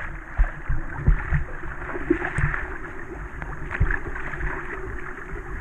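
River water sloshing and splashing against a GoPro's waterproof housing riding at the waterline of a floating inner tube, with a few dull knocks of water hitting the case.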